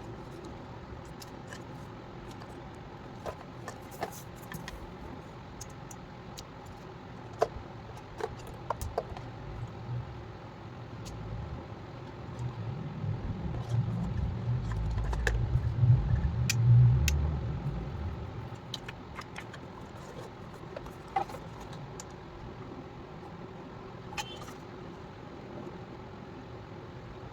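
Scattered light clicks and taps of small plastic items being handled over a steady background hum, with a low rumble swelling up and fading away in the middle.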